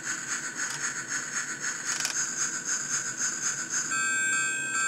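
Disney Majesti sound pocket watch's electronic sound chip, set off by light when the lid opens, playing a steam-train chugging through its tiny speaker: a rhythmic hissing chuff, about four a second. About four seconds in it changes to a beeping electronic tune.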